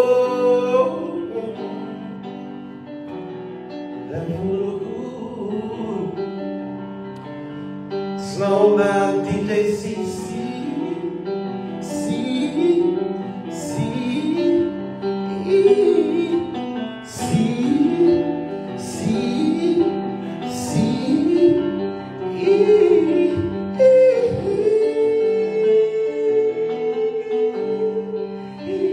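A singer performs a slow melody with wide vibrato over sustained chords, ending on one long held note near the end.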